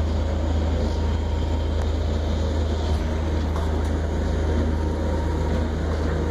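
Steady low drone of a 1959 26-foot steel trawler's inboard engine running under way, heard from inside the wheelhouse.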